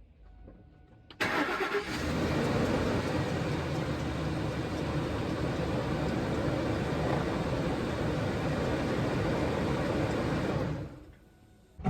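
2004 Lincoln Navigator's 5.4-litre V8 engine starting and running under the hood, with the squealing serpentine belt being shown before the WD-40 fix. The sound starts abruptly about a second in, runs steadily and fades out near the end.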